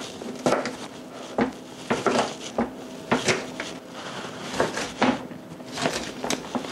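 Chef's knife chopping red and green bell pepper on a plastic cutting board: a string of irregular knocks, roughly two a second.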